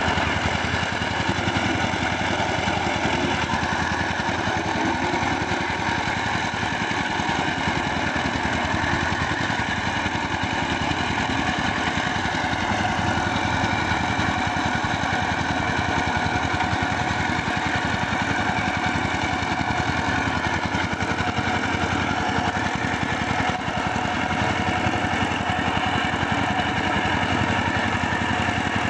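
Two-wheel power tiller's single-cylinder diesel engine running steadily as it pulls its cage wheels through a flooded, muddy paddy field.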